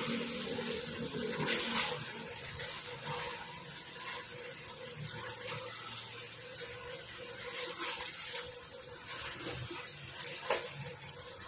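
Pork pieces in a thick braising sauce being stirred in an aluminium pot: wet sloshing and scraping under a steady hiss, with a sharp knock of the utensil on the pot about ten and a half seconds in.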